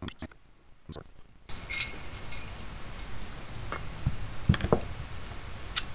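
A few separate light clicks and clinks of small metal carburetor parts being handled as the carburetor's top cover is taken off and its slide spring exposed.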